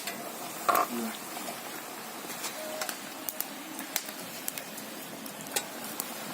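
Batuk, black-gram lentil fritters, frying in hot mustard oil: a steady sizzle with scattered sharp pops and crackles. One brief louder sound comes about three-quarters of a second in.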